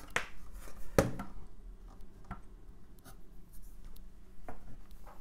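The EG 2000 Colour Genie's main circuit board being handled, turned over and set down on a wooden tabletop: a sharp knock about a second in, a few softer taps, and light rubbing of hands on the board.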